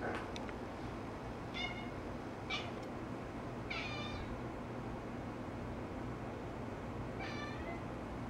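Domestic cat chirping at a laser dot on the ceiling, the excited call cats make at prey they cannot reach: four short, high-pitched calls, three close together in the first half and one more near the end.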